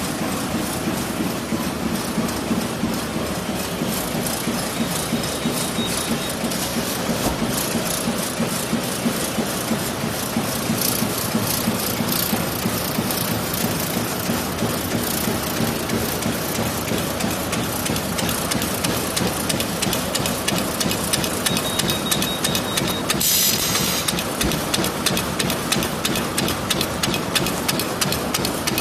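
Disposable-glove production machine running, a steady mechanical hum under a fast, even clatter of repeated strokes. A short burst of hiss comes about three-quarters of the way through.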